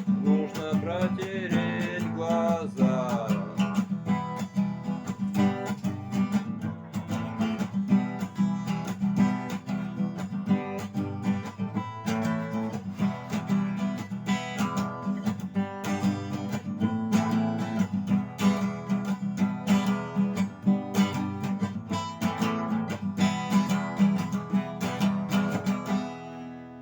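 Acoustic guitar strumming chords in a steady rhythm as an instrumental break, with the last chord ringing out and fading near the end.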